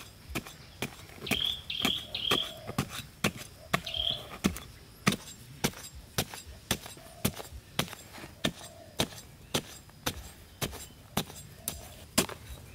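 Wood being chopped with a hand tool: sharp, evenly paced strikes, about two a second. A few short high chirps sound in the first few seconds.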